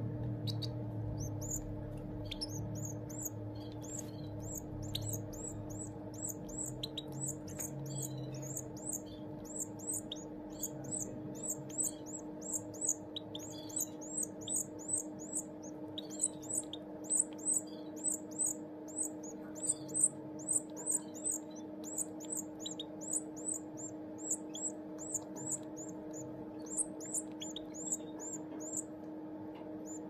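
A goldfinch × canary hybrid nestling giving high, thin begging cheeps in quick repeated series, about two to three a second, loudest around the middle, as it begs to be fed by the female canary. A steady low hum runs underneath.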